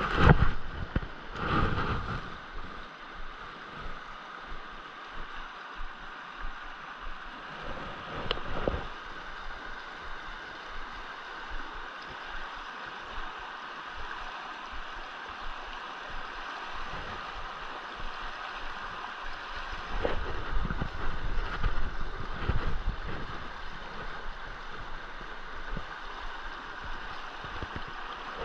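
Steady rush of a fast, shallow creek running over stones. Bumps and rustling on the microphone come at the start, about eight seconds in, and again around twenty seconds in.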